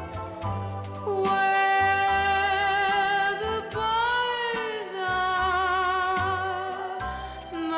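Background music: a melody of long, slightly wavering held notes over a bass line that moves every second or so.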